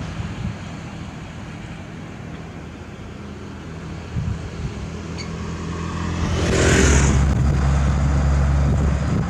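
Heavy diesel engine of road-construction machinery running, growing louder from about six seconds in, with a short burst of hiss about seven seconds in.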